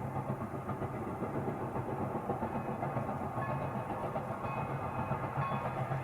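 Pere Marquette 1225, a 2-8-4 Berkshire steam locomotive, running with its passenger train: a steady, rapidly pulsing rumble. Faint thin high tones come in about four seconds in.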